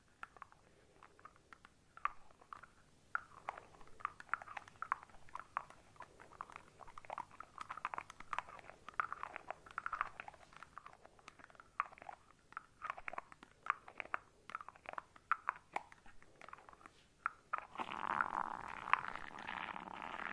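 Shaving cream foam being squished and worked by hands close to the microphone, with irregular wet crackles and squelches. Near the end it becomes a denser, louder, continuous foamy crackling.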